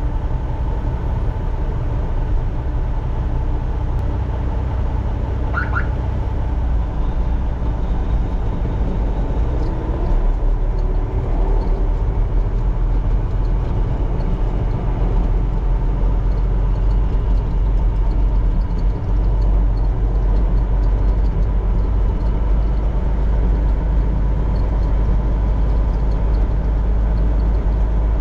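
Combine harvester running steadily while harvesting soybeans: a deep, even machine drone with a faint steady whine, the low rumble getting a little louder about ten seconds in.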